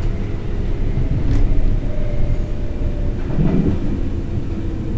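Berlin S-Bahn electric train running on the rails, heard from the driver's cab: a steady low rumble with a faint steady whine, a short click about a second and a half in and a heavier thud about three and a half seconds in.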